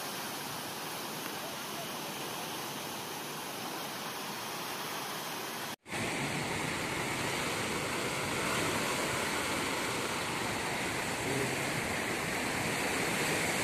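Floodwater of the swollen river rushing and churning over a weir: a steady rushing noise that cuts out for an instant about six seconds in, then carries on slightly louder.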